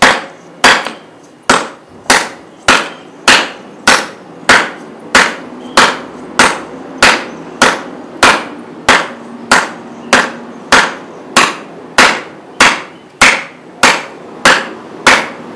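Khukuri blade chopping into a weathered piece of wood against the side grain: a steady series of sharp strikes, one roughly every 0.7 seconds, more than twenty in all, with the blade biting into the wood.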